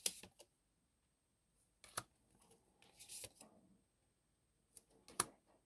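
Tarot cards being handled on a table: a few short sharp taps, about two seconds in and again near the end, and a brief rustle of cards about three seconds in.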